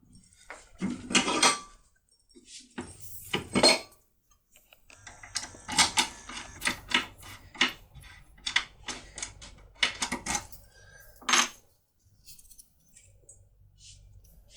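Small metal locksmith tools and a lock cylinder being handled, clinking and clicking against each other. There are a few clinks in the first few seconds, then a run of quick clicks and taps that stops near the end.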